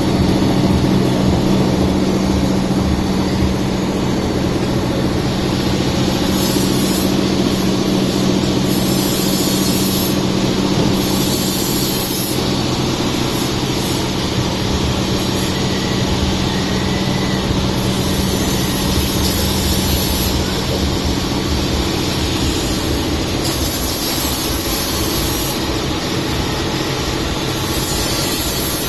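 Amada Quattro 1 kW CO2 laser cutting machine running: a steady machine hum, with repeated bursts of high hiss lasting a second or two each.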